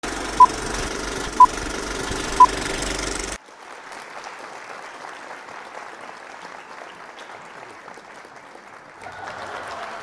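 Old-film countdown leader sound effect: a steady film-projector running noise with a short high beep once a second, three beeps in all. It cuts off suddenly about three and a half seconds in, leaving a quieter steady hiss.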